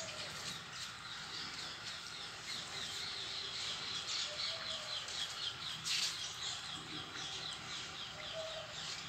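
Birds chirping: a quick run of short, repeated high chirps through the middle, with one sharp click about six seconds in.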